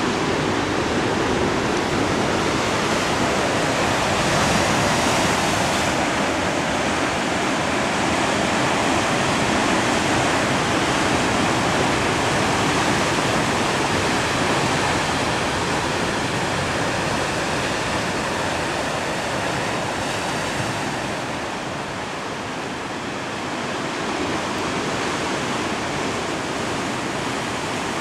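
Sea surf washing over a rocky shore: a steady, loud rushing, easing off a little about three-quarters of the way through.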